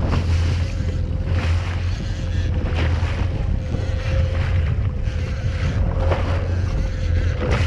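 Jet ski engine running steadily under way, with wind buffeting the microphone and water splashing against the hull.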